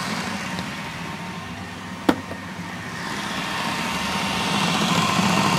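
Food processor motor running steadily, blending cooked chickpeas and lentils with tahini into a dip. A single sharp click about two seconds in.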